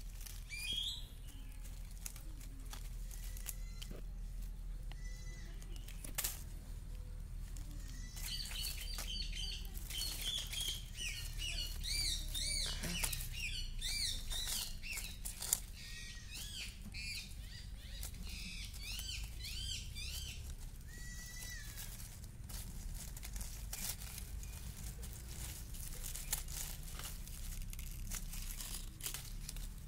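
Birds chirping and calling in quick repeated high phrases, thickest in the middle stretch, over scattered crackles and snaps from the dry leaf litter being stirred.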